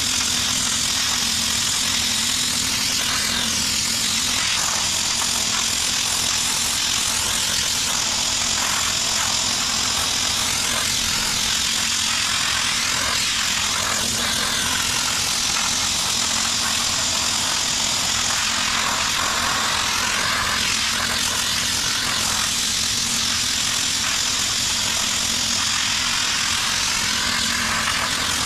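Harbor Freight pressure-pot sandblaster blasting grit against the teak slats of a rocking chair: a steady, unbroken hiss of air and abrasive, with a steady low hum underneath.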